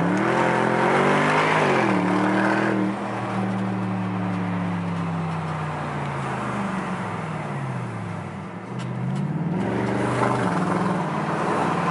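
BMW E63 6 Series 4.4-litre V8 with a straight-piped exhaust, heard from inside the cabin while driving. The engine climbs in revs, drops sharply about two seconds in as it shifts, holds fairly steady, then falls and rises again several times as the car slows and accelerates.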